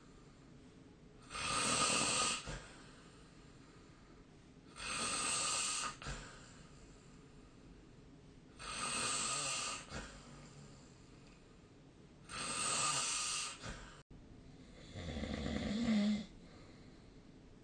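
A person snoring in sleep: five snores about three and a half seconds apart, each lasting about a second. The first four are breathy and hissy; the last is lower, with a humming tone in it.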